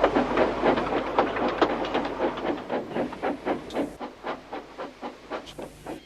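Steam locomotive chuffing at a steady pace, about four or five chuffs a second over a hiss of steam, fading away.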